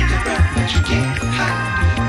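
Background music with a moving bass line and light percussion.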